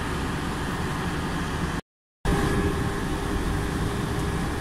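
Steady rumble of a bus driving, engine and road noise heard from inside the passenger cabin. The sound drops out completely for a moment about two seconds in, then resumes unchanged.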